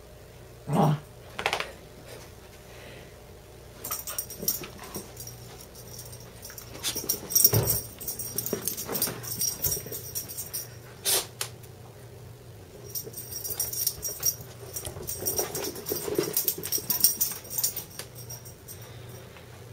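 Two dogs play-fighting: a couple of loud short vocal sounds about a second in, then long stretches of rapid clicking and scuffling with occasional yips and growls as they wrestle.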